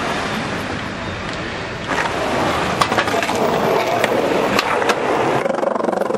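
Skateboard wheels rolling over rough street pavement, a steady gritty rumble that grows louder about two seconds in. Several sharp clacks of the board hitting the ground are heard through the middle and near the end.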